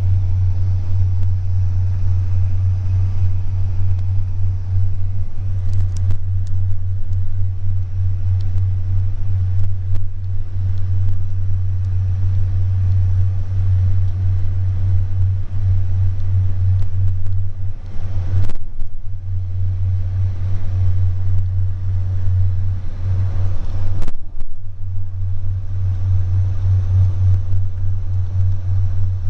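Steady low rumble of a passenger train carriage running at speed, heard from inside the coach, with two short sharp clicks partway through.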